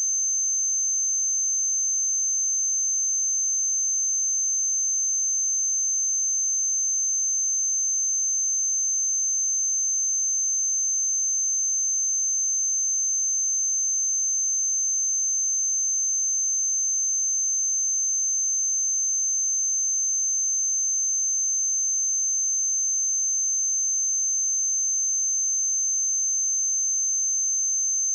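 A steady pure sine-wave test tone at 6254 Hz, a single high-pitched whistle held unchanged at constant level.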